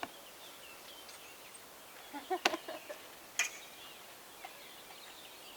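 Faint bird chirps in the background, with two sharp knocks about a second apart near the middle.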